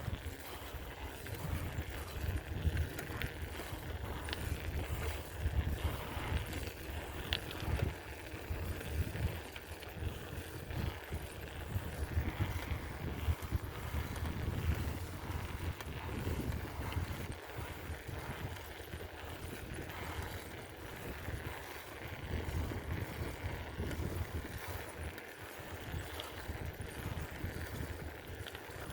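Wind buffeting the microphone on a moving bicycle: an uneven low rumble with road noise beneath and a few light clicks or rattles.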